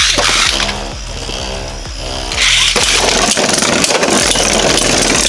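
Beyblade launch with the ripcords torn out, then two Beyblades spinning in the stadium with a steady whine, turning into dense rattling and grinding as the tops clash from about two and a half seconds in. One top is a heavy 3D printed dual-spin Beyblade running in left spin against a right-spin top.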